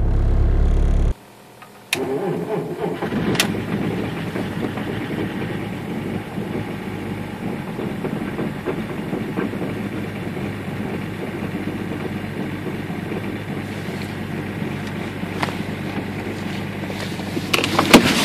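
A Seat Leon's engine idling, cut off about a second in. Then a BMW E46 diesel engine starts from cold at about −16 °C, with a sharp click as it catches about two seconds in, and settles to a steady idle. Near the end come a few knocks from the car's interior as a hand goes to the door handle, the last one the loudest.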